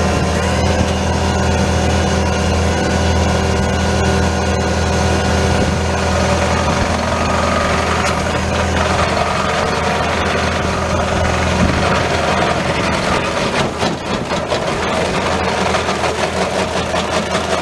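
Bobcat T630 track loader's diesel engine running steadily with the stump grinder attachment fitted; about twelve seconds in the sound turns rougher, with a fast pulsing flutter.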